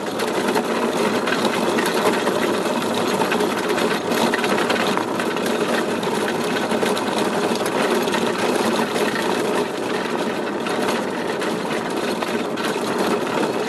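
Steady, loud, rapid mechanical clatter and rumble from a dog-training rig being pulled over a gravel road by a sled-dog team. It cuts off suddenly at the end.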